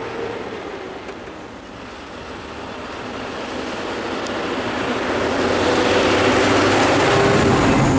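A bus driving close past, its engine running and its tyres rushing on the road, the noise building steadily and loudest near the end.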